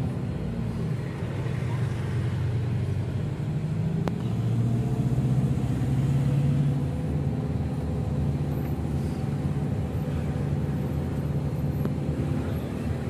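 Steady engine hum and road noise of a vehicle driving along.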